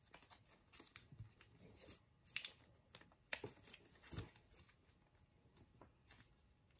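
Origami paper being folded and creased by hand on a tabletop: faint scattered rustles and taps, with a few sharper clicks in the middle.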